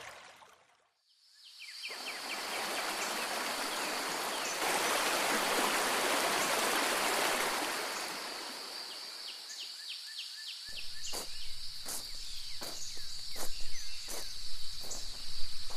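Outdoor natural ambience that fades in after a moment of near silence: a rushing-water hiss like a stream, with a steady high-pitched insect trill over it. About eleven seconds in, footsteps begin at roughly two a second and become the loudest sound.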